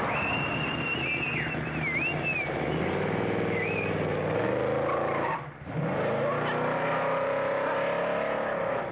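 Hot-rod car doing a burnout, tyres squealing with a wavering high screech for the first couple of seconds. The engine then revs hard and rises in pitch as the car pulls away, drops off briefly about halfway through, and climbs again.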